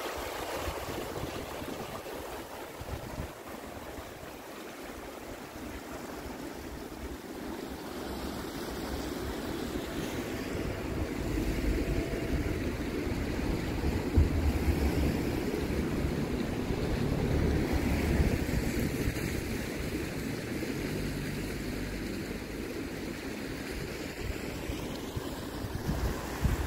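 Fast-flowing floodwater of a river in spate rushing steadily, with wind buffeting the microphone more strongly from about halfway through.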